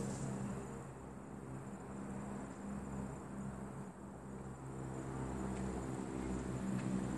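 Insects trilling steadily in a high, continuous band, over a low steady mechanical hum.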